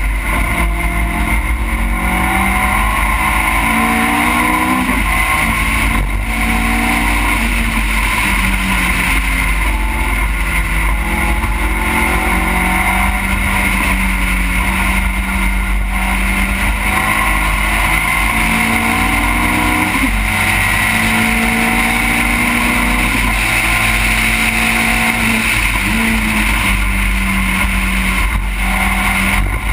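Engine of an open-cockpit race car heard from onboard at racing speed. Its pitch climbs again and again under acceleration and drops back at each shift or lift, over a steady low rumble of wind and road.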